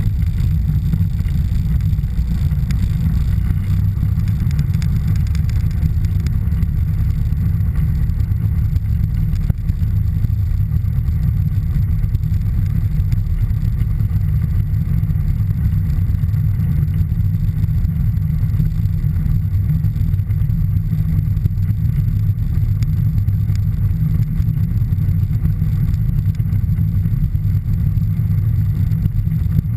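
Piper PA-28-161 Warrior III's 160 hp Lycoming O-320 engine and propeller running steadily, heard from inside the cockpit as a constant low drone.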